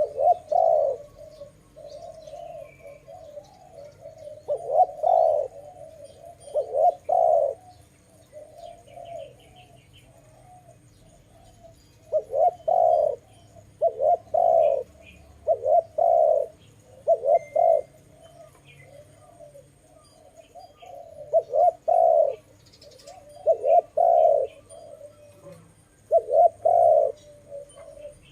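Spotted dove cooing in repeated phrases: runs of soft low coos broken by louder, fuller notes, often in pairs, with a few seconds' lull between phrases. Faint higher chirps of small birds come now and then.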